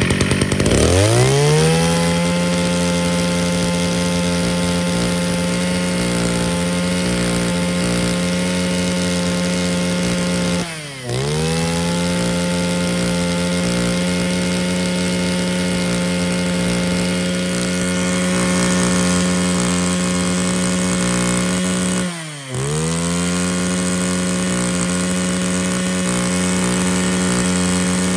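Mitsubishi TL261 26cc two-stroke brush cutter engine, just started, revving up fast and then running at a steady high speed. Twice the revs drop sharply and pick straight back up.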